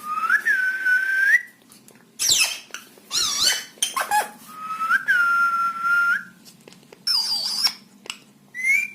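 Pet parrot whistling: a long held whistle that rises at the end, then short swooping calls, then a second long held whistle about five seconds in, and more brief swooping calls near the end.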